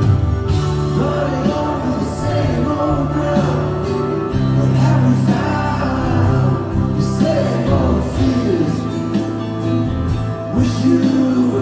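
A song with singing and sustained bass notes, played through a Devialet Dione soundbar.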